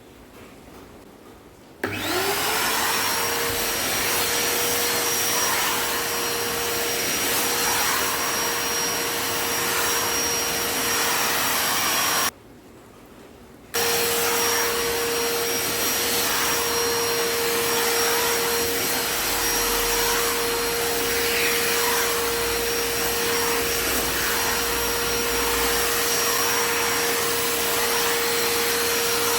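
Wet and dry vacuum cleaner switched on about two seconds in, its motor whine rising in pitch as it spins up and then running steadily while it sucks dust off a sofa. The sound breaks off for about a second and a half near the middle and comes back at full strength.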